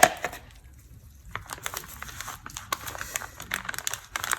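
Thin plastic being handled: crinkling with scattered small clicks, after a sharp tap at the very start.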